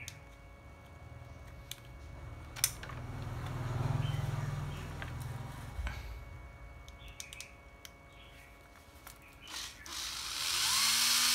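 Scattered clicks and rustling as test clips are fitted to the battery contacts of an old 9.6 V cordless drill. Near the end the drill's motor starts with a short rising whine and then runs steadily, powered through the clip leads.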